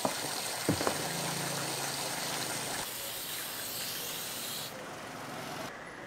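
Water jetting hard from a hose nozzle into a plastic basin and over a wooden cutting board, a steady hiss, with two light knocks about a second in. The hiss eases off near the end.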